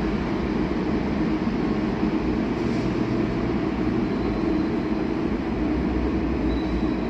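Rubber-tyred Translohr tram running steadily, a continuous rumble with a low hum and a faint high whine.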